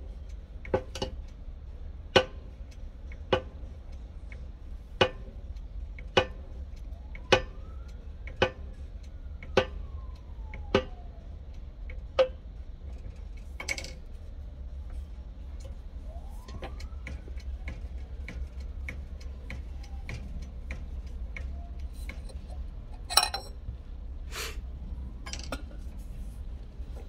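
A steel driver tapped about once a second, roughly ten sharp metallic strikes with a short ring, pressing a seal down onto a water pump shaft, followed by a few scattered metal knocks near the end. A steady low hum runs underneath, and twice a faint tone rises and falls.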